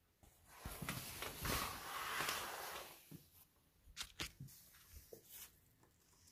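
Window blinds being handled: rustling for a couple of seconds, then a few sharp clicks about four seconds in and again near five seconds.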